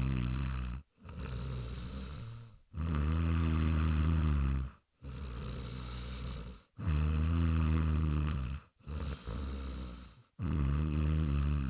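A man snoring in a steady rhythm. Loud, low two-second snores alternate with quieter breaths, repeating about every three and a half seconds.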